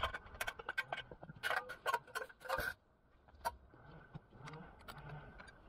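Light metallic clicks and knocks from an aluminium ladder guide rail of a chainsaw mill being handled, lifted off an oak log and set down. There is a dense clatter through the middle, then a single click a little later.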